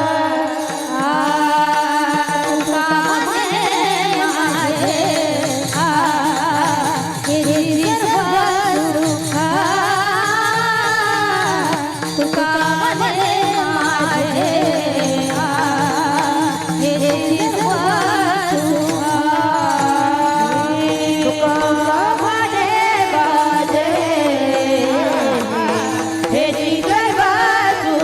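Devotional kirtan singing with a long, wavering, ornamented melody over steady musical accompaniment.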